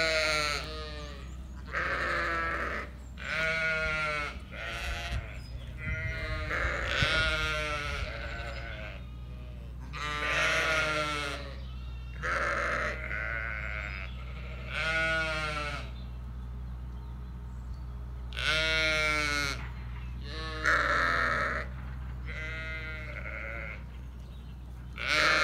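Zwartbles ewes and lambs bleating, about a dozen wavering calls one after another, some lower and some higher-pitched.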